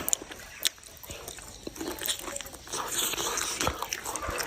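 A person eating: chewing and crunching, with scattered short clicks.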